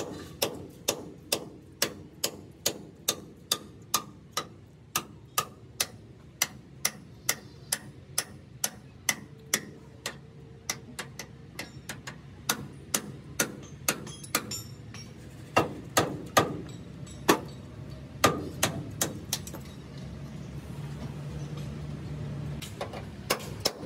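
Hand hammer striking the steel of a truck chassis in a steady rhythm of about two blows a second, each with a short metallic ring. After about fifteen seconds come a few harder, irregular blows, and then the hammering thins out.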